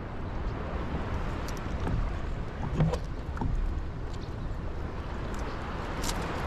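Steady wind and water noise around a small kayak, with a few light clicks and knocks; the loudest knock comes about three seconds in.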